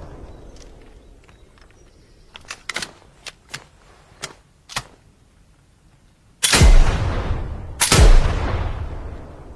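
Double-barrelled shotgun fired twice, the shots about a second and a half apart near the end, each loud and sudden with a tail that fades over a second or more. Earlier, a run of light, sharp clicks.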